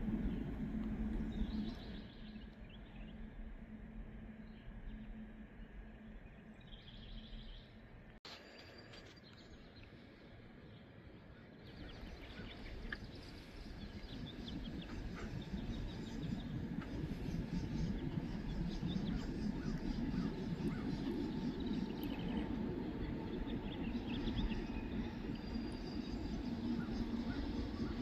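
Low rumble of a freight train on the rails, dying away about two seconds in. Birds chirp in the lull, then a low rumble builds again from about twelve seconds in and holds.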